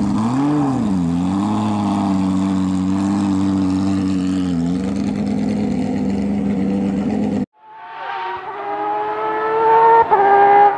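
Porsche 997 GT3 Cup's flat-six engine idling with two quick throttle blips near the start. After a sudden cut, the same car comes on at full throttle, its engine rising in pitch and getting louder as it approaches, with an upshift near the end.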